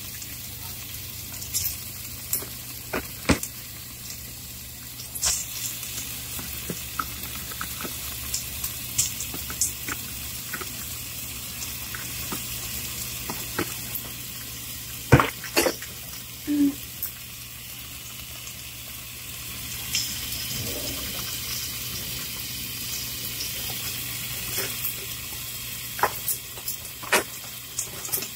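Raw shrimp frying in olive oil in a pot: a steady sizzling hiss with scattered sharp pops and crackles of spitting oil, growing a little louder about two-thirds of the way through.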